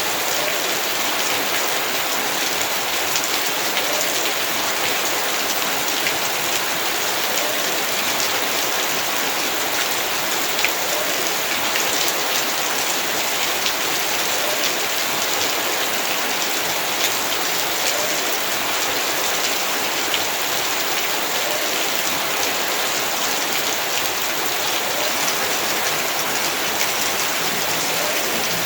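Heavy rain falling steadily, with the hiss of the downpour and many individual drops ticking on hard surfaces.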